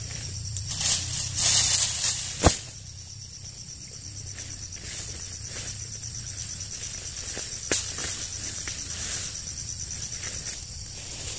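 Insects buzzing steadily at a high pitch, with a burst of rustling brush and leaves about a second in, a sharp crack about two and a half seconds in, and a smaller crack near eight seconds.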